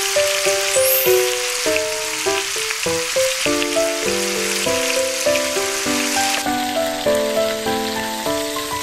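Food frying in a hot pan, a steady sizzle that becomes quieter about six seconds in, under background piano music.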